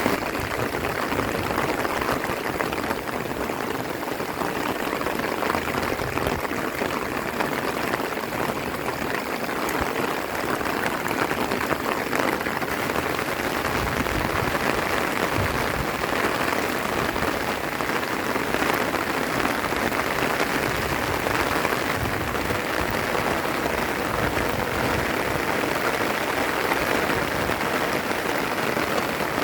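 Steady heavy rain falling, a dense even hiss of drops striking leaves and ground.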